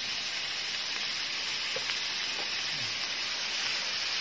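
Diced vegetables sizzling in a frying pan on a stove, stirred with a spoon, a steady hiss.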